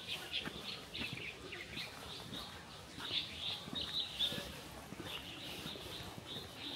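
Small birds chirping: many short, high calls in quick, irregular runs.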